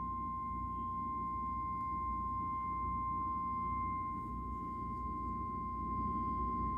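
Emergency Alert System attention tone: one steady, unwavering pitch of about 1050 Hz, the weather-radio style alert tone that heads a required monthly test, held for around eight seconds over a low background rumble before the test announcement.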